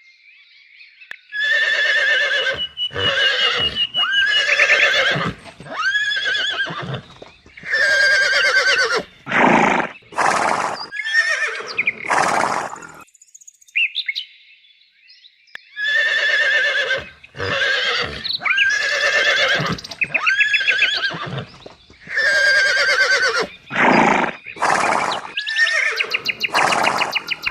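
Horse whinnying in a run of short neighs with a trembling pitch. The run stops for about two seconds halfway through and then plays again almost the same.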